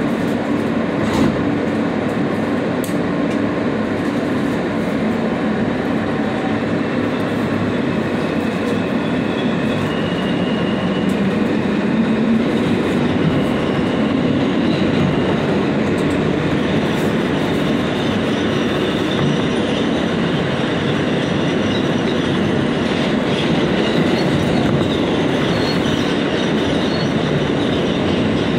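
New York City subway G train heard from inside the car as it pulls out of a station and runs into the tunnel: a steady, loud rumble of wheels on rail.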